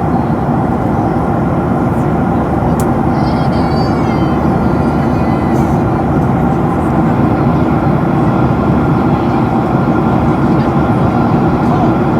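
Steady cabin noise of a Boeing 737-300 in cruise: the CFM56 engines and the airflow past the fuselage make an even, unbroken drone with a few steady tones in it. A single faint click comes about three seconds in.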